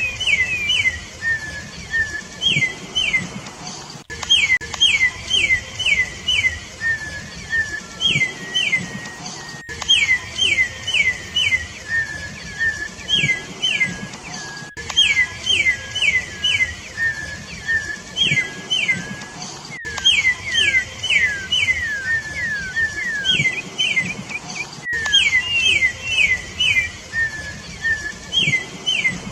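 Campo troupial (corrupião) singing: quick groups of clear whistled notes, repeated every few seconds.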